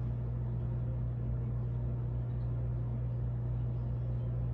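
A steady, unchanging low hum: one deep tone with a fainter rumble beneath it.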